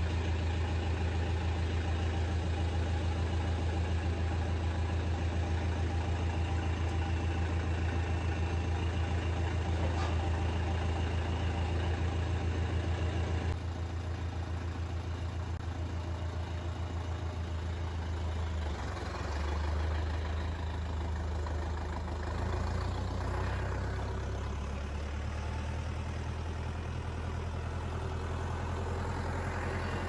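Diesel tractor engine idling steadily with a deep hum; after a cut about halfway through, the engine runs as the tractor is driven, its pitch shifting a few times.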